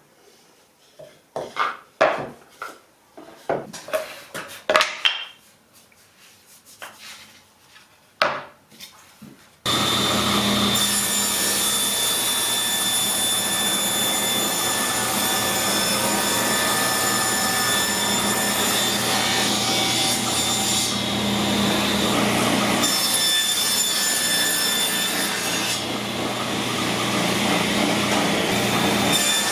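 Wooden parts knocked and set down in a series of sharp clacks. Then, starting abruptly about ten seconds in, a table saw runs steadily with its blade cutting wood.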